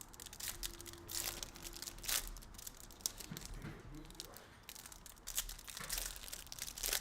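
Trading card pack wrappers crinkling and tearing as packs are opened and handled, in quick irregular crackles.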